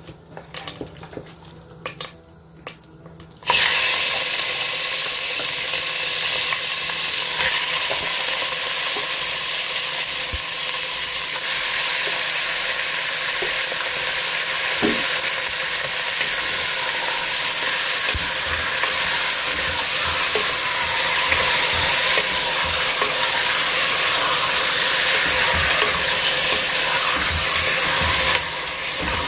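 Raw mutton pieces dropped into hot ghee in a pressure cooker about three and a half seconds in, setting off a sudden, loud, steady sizzle of meat frying in the fat. Near the end the meat is stirred with a wooden spatula.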